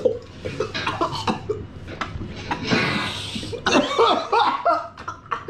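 Young men coughing and spluttering as they spit mouthfuls of water into a metal bowl, with a hissing splutter about three seconds in, followed by loud laughter from the group.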